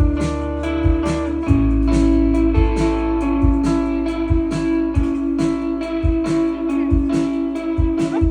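Live indie band playing: a steady drum beat of about two strokes a second under sustained electric bass notes and guitar.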